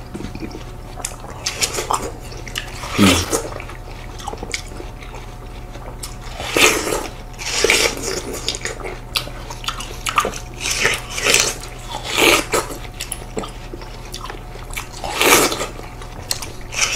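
Two people biting and chewing slices of seedless watermelon, with irregular bites scattered through and several louder ones.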